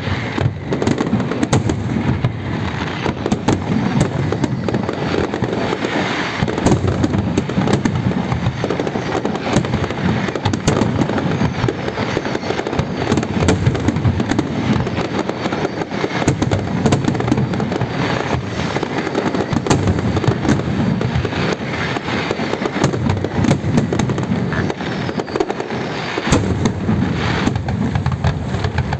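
Fireworks display: a dense, unbroken barrage of bangs and crackling, with no pause between shots.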